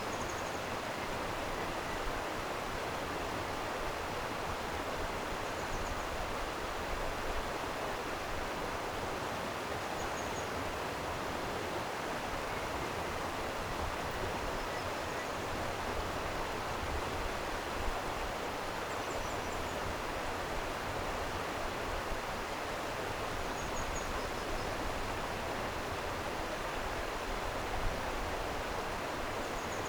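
Stream water flowing in a steady rush, with faint, short high chirps of a bird every few seconds.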